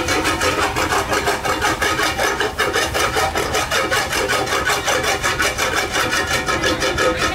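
Rapid, even back-and-forth scraping, about six strokes a second, kept up steadily.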